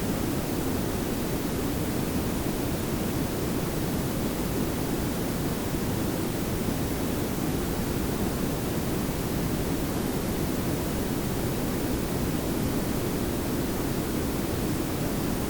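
Pink and brown noise layered together: a steady, even hiss over a low rumble, unchanging throughout.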